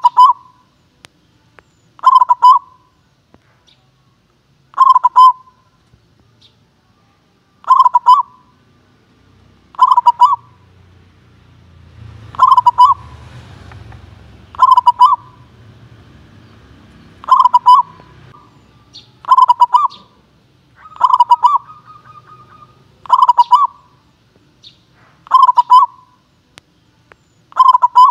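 Zebra dove (perkutut) singing: short bursts of rapid cooing notes, each burst repeated about every two seconds, some thirteen times.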